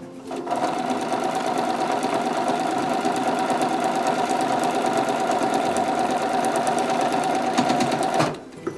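Home sewing machine stitching through fabric and a paper foundation pattern at a steady speed: a constant motor whine with fast, even needle ticks. It starts just after the opening and stops abruptly shortly before the end.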